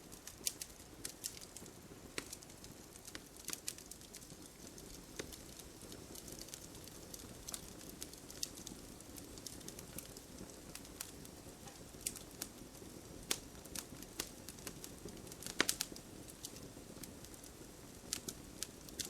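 Wood campfire burning: a steady low rush of flames with scattered sharp crackles and pops, and a quick cluster of louder pops a little past three-quarters of the way through.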